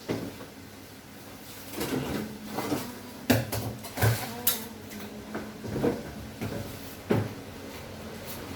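A series of irregular knocks and clunks, the kind made by hard objects and furniture being handled and set down, with the loudest knock about a third of the way in.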